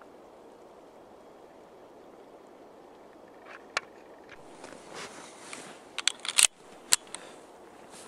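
Two shots from an AMT Automag III pistol in .30 Carbine, about half a second apart, two-thirds of the way in, after a stretch of faint steady outdoor noise broken by one sharp click.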